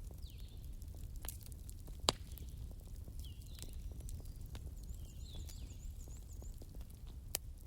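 Wood fire crackling, with scattered sharp pops over a low steady rumble; the loudest pop comes about two seconds in. Birds call: a short chirp repeats every couple of seconds, and a quick high run of about seven notes comes a little past the middle.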